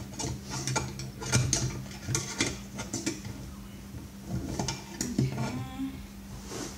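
Flat-blade screwdrivers clicking and scraping against the metal parts of a vacuum cleaner motor as a stuck piece is pried at, in irregular clinks and scrapes.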